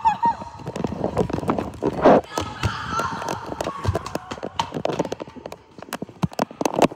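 Running footsteps on a gym floor, a quick uneven patter of thumps, with short shouts from children.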